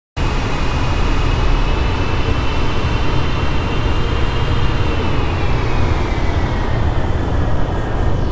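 Airbus A380's four jet engines running, a steady heavy rumble with a high whine that slowly drops in pitch over the second half. The sound cuts in abruptly right at the start.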